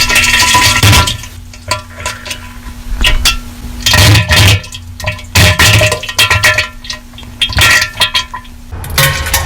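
Heavily overdriven, distorted diarrhea sound effect: a string of loud, irregular, clipping bursts with splattery noise, over a steady low hum.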